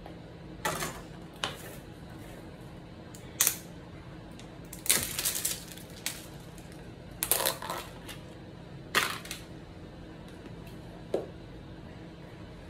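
Spatula scraping whipped topping out of a plastic tub and knocking against the tub rim and bowl, with plastic tubs and lids set down on a wooden table: about seven short, scattered scrapes and clicks.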